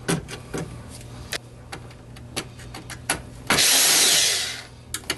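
Drill-driver spinning a screw out of the iMac's copper heatsink plate for about a second, starting about three and a half seconds in and trailing off as it stops. Before it, scattered light clicks and taps of the bit and tools being handled.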